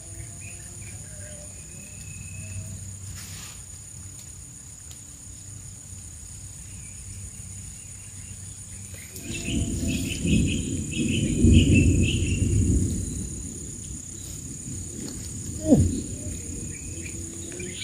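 Insects droning steadily in two high, even tones, with scattered bird chirps. Partway through, a louder low rumble swells for a few seconds, and a single sharp thump comes near the end.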